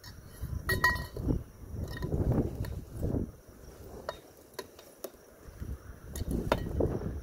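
Kayak poles clinking and knocking as they are pushed into a nylon duffel bag, with a ringing metallic clink about a second in, while the bag's fabric rustles and wind buffets the microphone in gusts.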